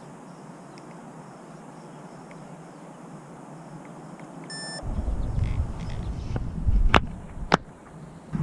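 Faint hiss, then wind rumbling on the microphone from about halfway through. A short electronic beep comes just before the wind starts, and two sharp clicks about half a second apart come near the end.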